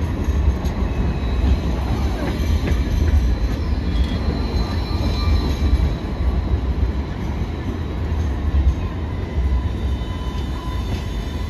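Sydney Light Rail Alstom Citadis tram rolling slowly past at close range: a steady low rumble with faint, thin, high-pitched squeal tones from the wheels on the rails.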